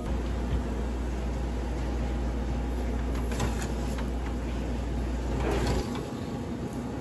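Commercial convection oven running with a steady low hum while a metal baking tray is pulled out on its rack: a few metallic clicks, then a short scraping slide. The hum cuts off suddenly near the end.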